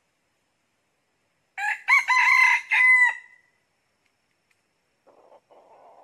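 A rooster crows once, about a second and a half in, a short call of a few rising notes ending on a held note. Faint scratchy sounds follow near the end.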